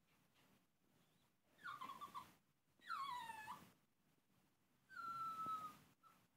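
Yorkshire terrier puppy whining in its crate, three high cries: a short wavering one, one that falls in pitch, and a longer, nearly even whine near the end. It is the crying of a confined puppy wanting out.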